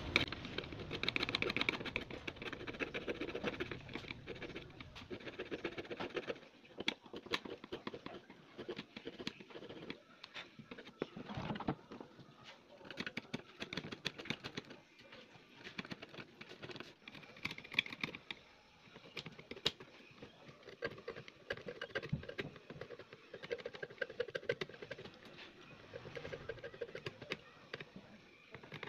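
Irregular scratching and small clicks of a tool scraping rust off the jumper wires on a CRT TV circuit board.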